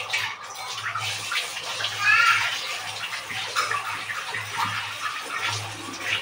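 Water running into a steel cooking pot, filling it for steaming, over a low steady hum, with a brief squeak about two seconds in.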